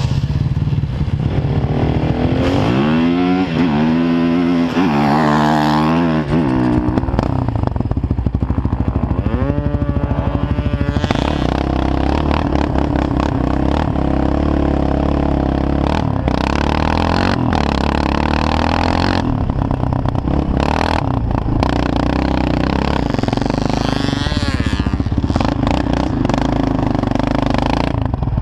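Sport quad (ATV) engine heard from on board while riding over sand. It runs continuously, rising and falling in pitch several times with the throttle.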